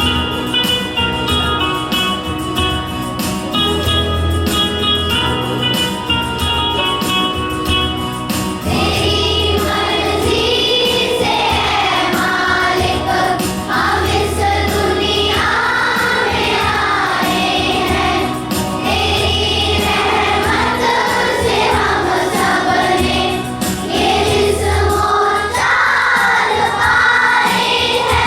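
A prayer song: about eight seconds of instrumental introduction with held notes, then a group of voices singing in unison over a steady low beat.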